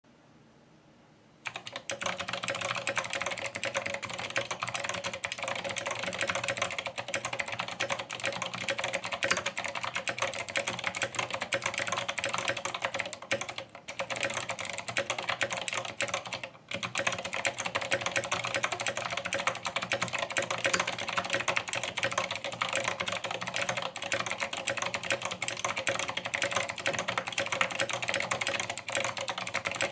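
Fast, continuous typing on a tenkeyless GMMK mechanical keyboard with Aliazstotle switches (Aliaz housings, Aristotle stems, Gateron yellow springs) and SA-profile keycaps. It starts about a second and a half in, with two brief pauses near the middle.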